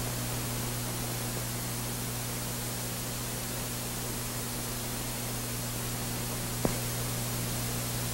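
Steady hiss with a low hum underneath: background noise of an old 1940s film soundtrack in a pause without dialogue or music. A single short click sounds near the end.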